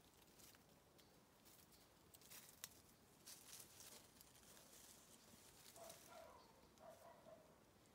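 Near silence: faint rustling and crackling in dry leaf litter and undergrowth, with a few faint short calls from about six seconds in.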